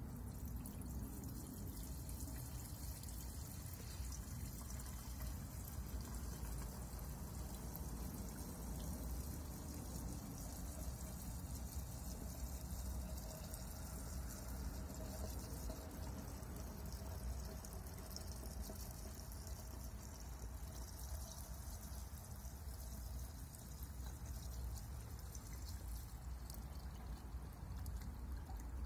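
Fuel pouring steadily from a gas can's spout into a lawn mower's plastic fuel tank.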